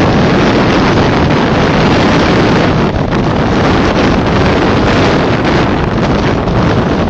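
Gale-force jugo (south-easterly wind, about 8 Beaufort) blasting across the microphone as a loud, steady rush heaviest in the bass. Storm waves break and splash against the quay wall.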